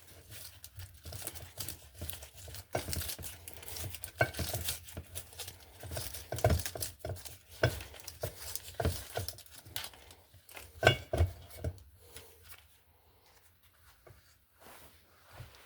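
Hands working a disassembled Raymarine Type 2 linear actuator, freeing its cables and rubber grommet: irregular rustling and scraping with small clicks and knocks of parts. It dies down about twelve seconds in.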